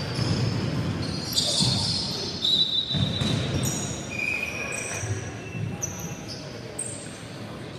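Basketball game noise on a wooden gym floor: sneakers squeaking several times in short high chirps over repeated thuds of the ball bouncing.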